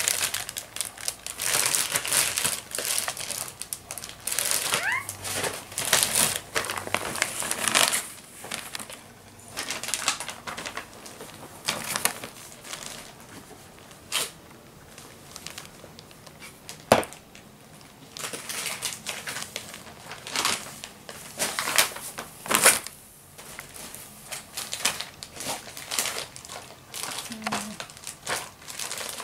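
Plastic packaging and bags rustling and crinkling in irregular bursts as items are packed into luggage, with a few sharp knocks or clicks along the way.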